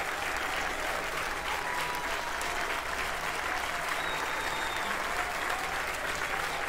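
Large concert audience applauding, a dense, steady clapping.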